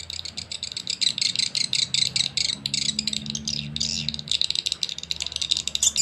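Recorded swiftlet lure call ('suara tarik') played through tweeter speakers from a swiftlet-house sound player: a fast, dense run of high chirps, many each second, starting suddenly. A low steady hum sits underneath.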